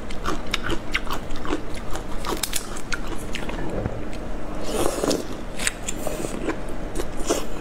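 Shell of a soy-sauce-marinated prawn crackling as it is peeled by gloved hands, then wet biting and chewing of the prawn close to the microphone, with many sharp clicks and crunches.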